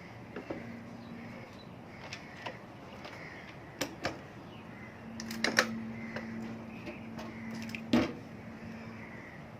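Scattered metal clicks and knocks of hand tools working loose the cylinder block of a Yamaha RXZ two-stroke engine, the sharpest about five and a half and eight seconds in, over a faint low steady hum.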